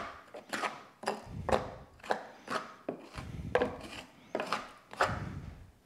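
Dry mouse-nest debris with bits of acorn shell rustling and crackling as it is pulled by hand out of a wooden cash-register drawer's compartments. It comes in repeated scratchy bursts about twice a second, with dull handling knocks underneath.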